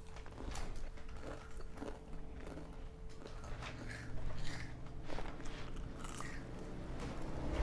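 Bites and chewing on a crispy fried banana fritter (pisang goreng): a string of short, sharp crunches.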